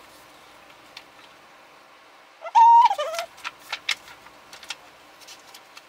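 Objects being rummaged through, with scattered small clicks and knocks. About two and a half seconds in there is a brief high-pitched vocal sound that rises, holds, then drops lower.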